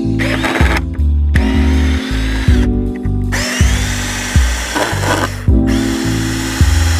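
Cordless drill backing screws out of pallet wood, its motor whining up in short runs. Background music with a steady bass line plays throughout.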